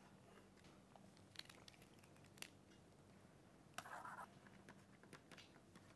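Near silence with faint taps and scratches of a stylus on a writing tablet, and one brief louder scratchy stroke about four seconds in.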